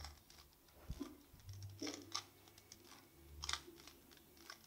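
Faces of a bandaged 3x3 Rubik's-type cube (Isaev's Fused Bi Clock) being turned by hand: a few faint, irregular plastic clicks and scrapes as the layers turn.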